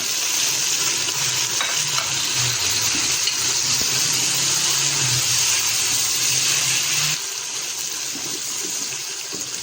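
Tomatoes sizzling as they fry in hot ghee with browned onions and ginger-garlic paste: a steady hiss with a low hum underneath. Both quieten somewhat about seven seconds in.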